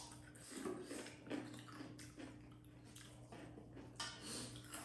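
Wet eating sounds of dhido and chicken curry: a run of short, irregular squelches and smacks, with a faint steady hum underneath.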